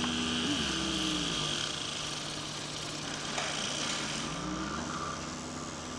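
Electronic tones from the speaker of a homemade sound lathe, whose cone drives a pen drawing on a spinning turntable: a low tone glides down in pitch about half a second in, holds steady, and another glides up a little past the middle, over a constant hiss.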